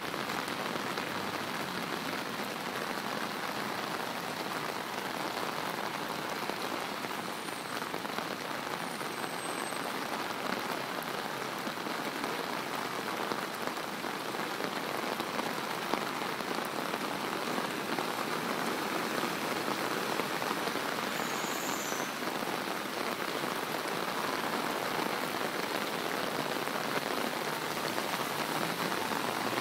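Heavy rain pouring onto a flooded asphalt road: a steady, dense hiss of drops striking the standing water.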